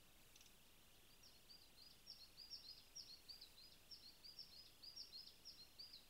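A small songbird singing out of view: a long, rapid series of high chirping notes that starts about a second in and goes on for about five seconds, over faint outdoor background hiss.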